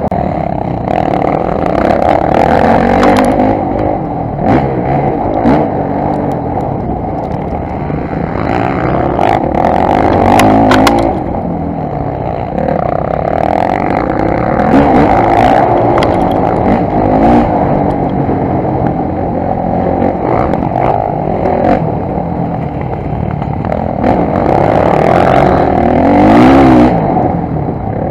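Motocross bike engine revving up and down through the gears while the bike is ridden hard on a dirt track, heard loud and close from a camera mounted on the bike. Short clattering knocks come through here and there.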